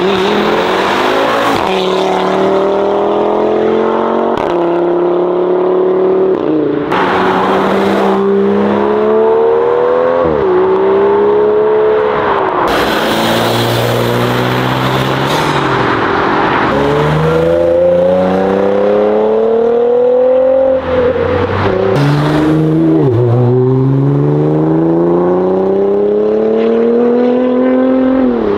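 Modified cars accelerating hard one after another. Each engine revs up in a rising sweep, and the pitch drops suddenly at each gear change.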